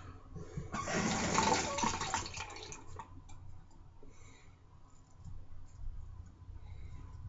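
Tap water running into a sink for about two seconds, starting about a second in. It is followed by faint short scrapes of a safety razor stroking over lathered stubble on the upper lip.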